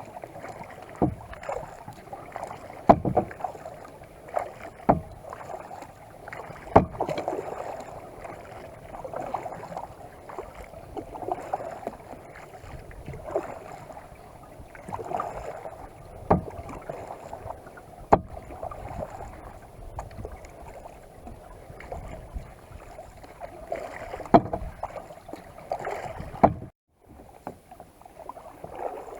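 Kayak paddling: paddle blades dipping and swishing through the water in repeated swells of splashing and dripping, with an occasional sharp knock.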